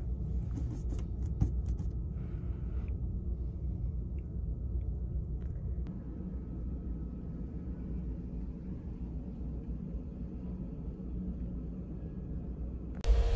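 Steady low rumble of a ferry's engines and machinery, heard inside a small sleeper cabin, with a few light clicks and taps in the first couple of seconds. Just before the end the sound jumps suddenly to a much louder, fuller rumble.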